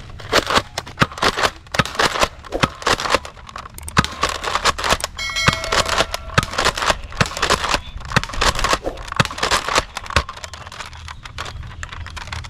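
Rapid, irregular run of sharp clicks and crackles, several a second, with a short steady electronic tone about five seconds in.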